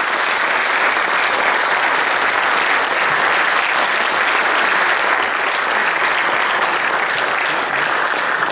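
Audience applauding: steady, dense clapping from many hands, loud and even.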